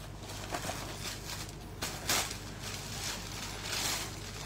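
Cloth and a plastic packet rustling softly as a folded suit is picked up and unfolded, with a few light brushes about two seconds in over a faint steady hum.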